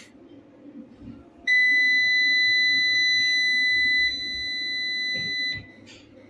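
Electronic buzzer sounding one steady, high-pitched beep about four seconds long. It starts about a second and a half in, turns a little quieter partway through, then cuts off suddenly.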